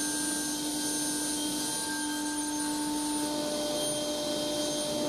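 Table saw running with its dust extraction on: a steady whine over a rushing hiss, as a thin strip of birch plywood is ripped against the fence.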